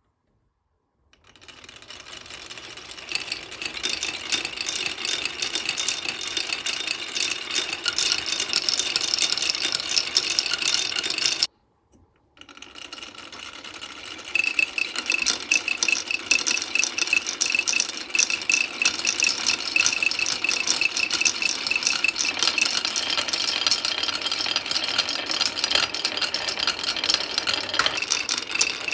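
Marbles rolling and clattering down a HABA wooden marble run, a dense, continuous rattle of many small clicks. It starts about a second in, cuts out for under a second near the middle, then carries on.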